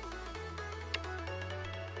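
Background music: an electronic-sounding melody over a steady bass line that changes note twice.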